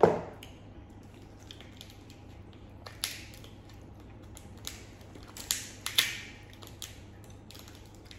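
Boiled crab and crawfish shells being cracked and snapped apart by hand: a few sharp cracks, the loudest right at the start, another about three seconds in, and a quick cluster around five to six seconds in.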